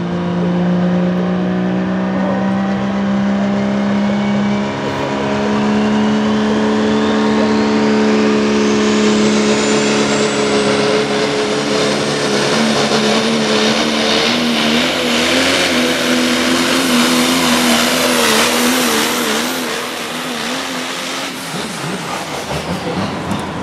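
4x4 modified pulling truck's engine running flat out under load as it drags the pulling sled. Its note climbs slowly while a high whine rises steeply over the first ten seconds; later in the pull the engine note wavers, and it drops off near the end.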